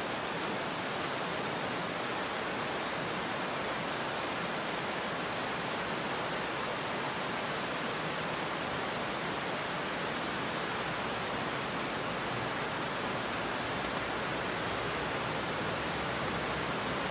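Heavy rain falling steadily: an even hiss with faint ticks of individual drops.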